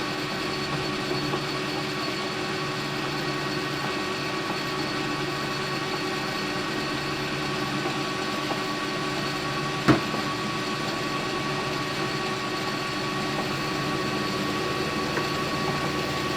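Metal lathe running steadily with a constant motor hum while machining a brass part, with a single sharp click about ten seconds in.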